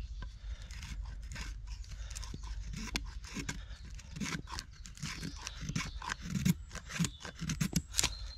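Knife blade stripping bark from a green stick in a series of short scraping cuts, growing denser and louder after the first few seconds, with heavier knocks of the blade into the wood in the second half, the loudest near the end.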